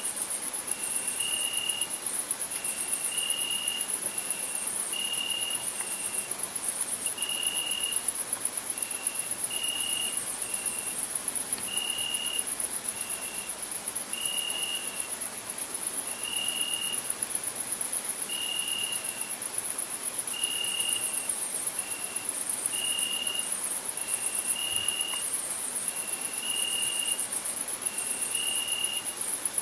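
Crickets chirring steadily with a fast, high pulsing trill. Short clear whistled notes at a lower pitch repeat every second or two over it.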